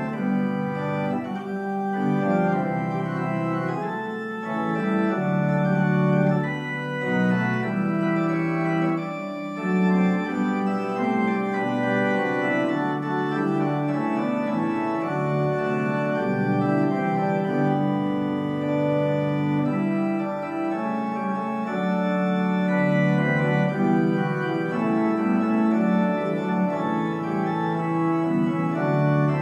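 Church organ playing a piece of full, sustained chords on the manuals, with pedal bass notes that come and go underneath.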